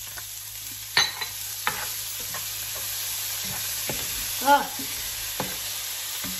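Onions and freshly added shrimp paste sizzling steadily in a cast-iron skillet while a spatula stirs them, with a few sharp knocks and scrapes against the pan. There is a brief, louder squeak that rises then falls about four and a half seconds in.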